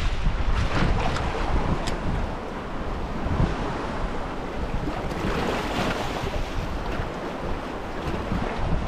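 Wind buffeting the microphone over the wash of waves on the shore, a steady rumbling noise that swells about five seconds in.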